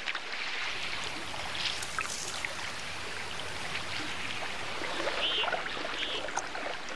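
River water running and trickling among drifting, thawing ice floes at spring break-up, with scattered small clicks and crackles from the ice.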